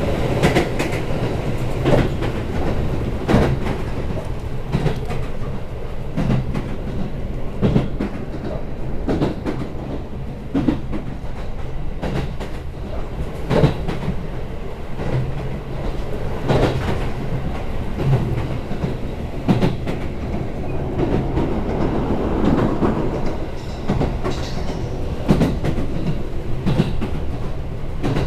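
Chichibu Railway express train running along the line, heard from inside the car: a steady rumble with the clickety-clack of the wheels over rail joints every second or two.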